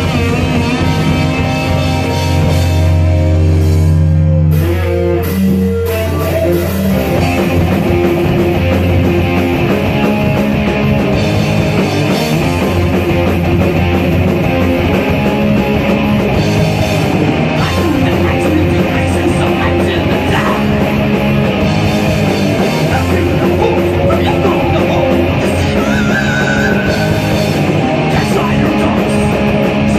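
Rock band playing live: electric guitar and drum kit with a second fretted instrument. Held notes slide down in pitch about five seconds in, then the full band drives into a loud riff.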